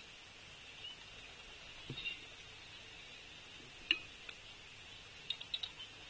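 Birds at feeders: scattered short chips and clicks over a steady high-pitched background hum. There is a soft thump about two seconds in, a sharp click near the middle, and a quick run of four or five high chips near the end.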